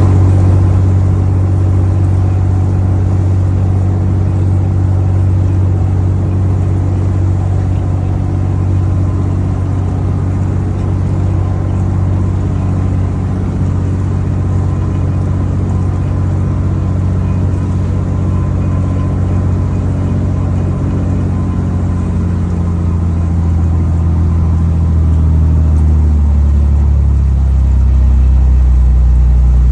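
Boat engine running steadily while under way, a loud low drone whose note falls in pitch over the last several seconds as it slows.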